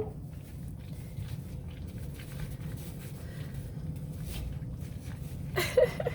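Bluetick coonhound puppies moving about with soft scratching and faint clicks over a steady low rumble, then a short, high puppy whine near the end.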